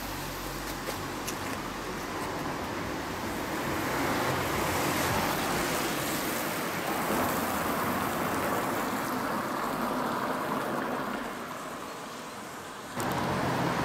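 A car passing on a wet road: tyre hiss swells over a few seconds and then fades away.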